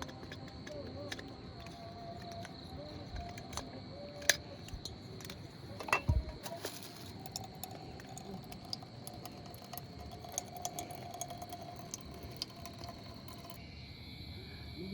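Scattered clicks and light handling noises, with one louder thump about six seconds in, over a steady high-pitched tone.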